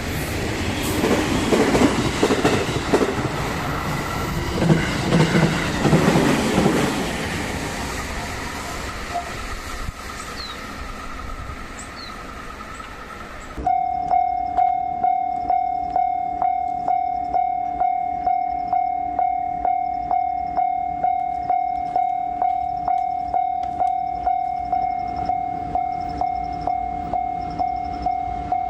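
A train runs past a level crossing with rolling wheel noise, loudest in the first several seconds and then fading away. About two-thirds of the way in, it cuts suddenly to a Japanese level-crossing warning bell ringing steadily at about two strokes a second.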